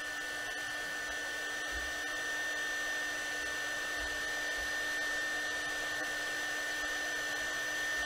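KAIWEETS KEH01 mini heat gun running on its low setting: a steady rush of air from its fan with a constant whine held over it. The fan has a slightly strange note.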